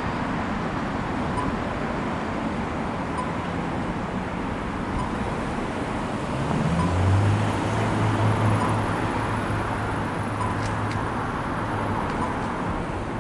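Steady city road traffic noise. About six and a half seconds in, a vehicle's engine hum rises over it, loudest a second or two later, and fades out about twelve seconds in.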